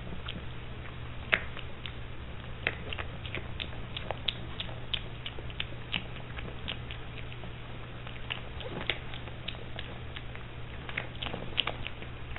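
A piglet eating dry feed pellets, chewing and crunching in quick, irregular crisp clicks, with several louder crunches among them.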